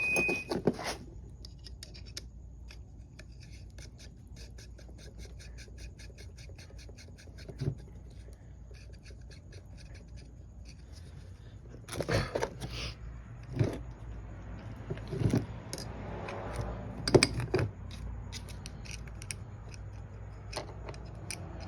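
Metal clicking and scraping as bolts are fitted to an engine connecting rod and its cap: a long run of quick light clicks, then several louder sharp metallic knocks in the second half.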